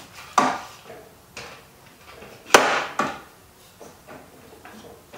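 A few separate metal knocks and clanks from hands working at a steel generator frame and its jack stands, the loudest and sharpest about two and a half seconds in, with lighter taps after it.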